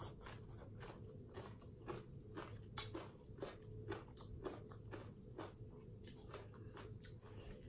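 Close-up mouth sounds of chewing a mouthful of crunchy green papaya salad, with irregular crisp crunches about two a second.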